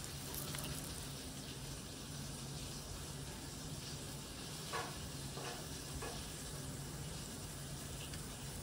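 Lamb cutlets sizzling in a frying pan: a steady hiss with a few small pops about five to six seconds in, over a low steady hum.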